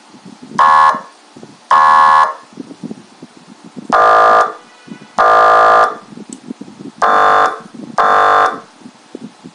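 YHAAVALE 6203 100-watt electronic siren sounding its horn tone through its speaker in six short, steady blasts, each about half a second, in three pairs.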